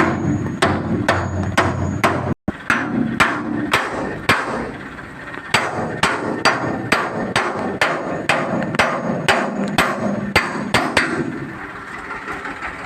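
Repeated hammer blows, about two a second, with a short pause around the middle and the strikes stopping shortly before the end.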